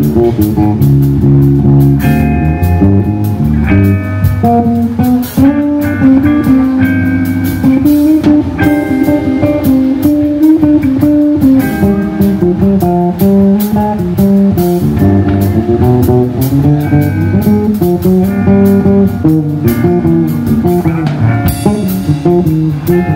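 Instrumental music led by guitar, with bass and drums.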